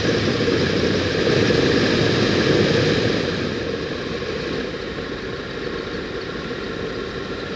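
2016 Acura RDX heater blower motor running, air rushing off its fan wheel, with a catching tick-tick-tick that the owner puts down to a worn, rusting bearing at its centre. It eases slightly about three seconds in.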